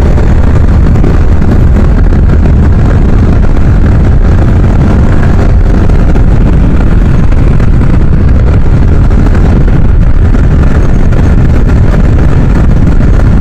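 Steady, loud rush of wind and road noise from a sport motorcycle cruising at speed, with the engine's note buried in it.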